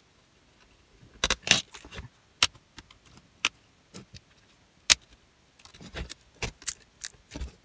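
Scattered, irregular small metallic clicks and clinks from a screwdriver and tiny screws being handled and driven into a netbook's base, with a quicker run of clicks near the end.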